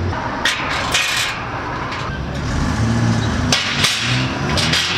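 A few short metallic clanks and scrapes as steel pit-lifting tools are handled: a spanner picked up and a long lifting bar moved. Steady road traffic runs underneath.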